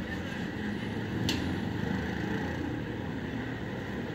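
Street traffic noise: the small engines of three-wheeled mototaxis running, a steady low hum. One short sharp click a little over a second in.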